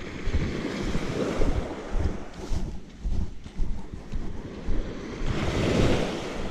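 Surf breaking and washing up the shore, with wind buffeting the microphone. The wash swells louder about a second in and again near the end.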